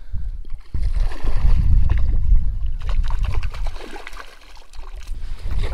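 Hooked trout splashing and thrashing at the surface as it is played in toward the landing net, under a heavy, uneven low rumble of wind on the microphone.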